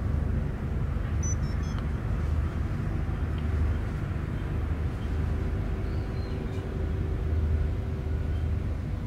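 Mother cat purring as her newborn kittens nurse: a low rumble that swells and eases about once a second with her breathing.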